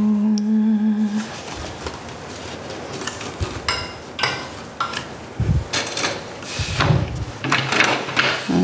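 Wooden loom being worked by hand: scattered wooden clicks and knocks, then a few low thuds as the beater is brought forward against the cloth.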